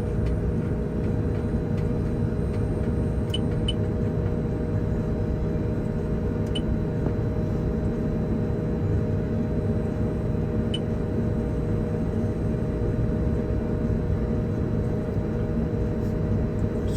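Grimme potato harvester running steadily with no crop going in, its cleaner and elevators emptying out, heard as a constant mechanical rumble from inside the cab, with a faint tick every few seconds.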